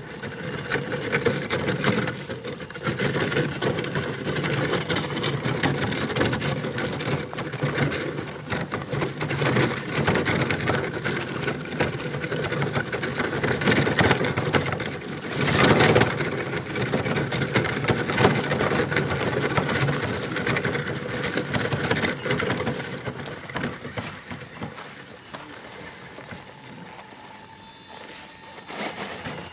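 HPI Crawler King RC rock crawler's 35-turn brushed electric motor and geartrain whining as it tows a small cart, with the tyres crunching over gravel. The whine shifts in pitch with the throttle, there is a brief louder burst of noise about halfway through, and it is quieter over the last few seconds.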